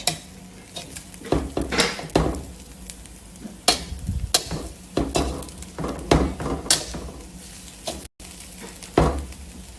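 A spoon scraping and knocking against a cooking pot in irregular strokes as cooked mandi rice is turned over to mix in oil and spices.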